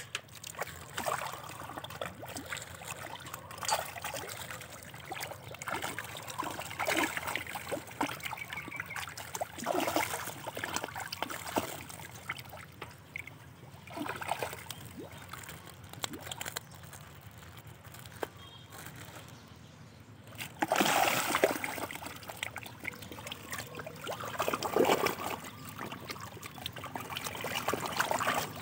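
Catfish splashing and sloshing at the water's surface as they thrash and gulp, in irregular bursts with a few louder splashes.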